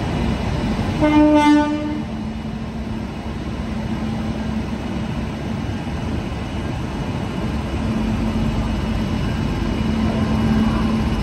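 A single short blast of a locomotive horn, about a second long, over the steady low hum and rumble of an electric train moving slowly through the station.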